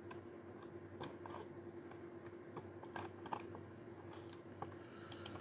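Faint, irregular light clicks and taps over a steady low hum.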